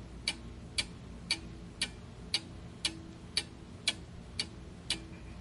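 Ticking-clock countdown sound effect, about two even ticks a second over a low steady hum, timing the pause for the viewer to pick an answer.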